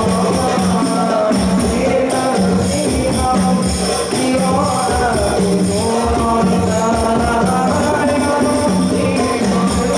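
A man singing a sholawat, an Islamic devotional song praising the Prophet, into a microphone in a long, melismatic line, over a steady rhythm of tambourine-like jingles and drum beats.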